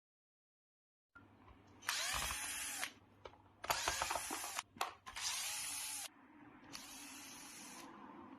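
Small power screwdriver running in four short bursts of about a second each, backing out screws to open the housing of a hand drill under repair.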